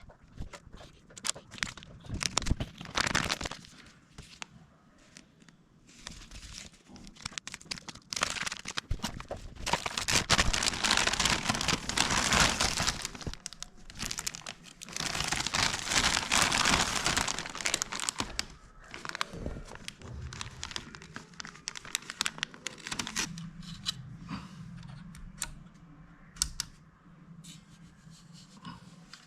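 Plastic and paper packaging crinkling and rustling, with tearing, in irregular bouts that are loudest and longest in the middle. A faint low hum sets in near the end.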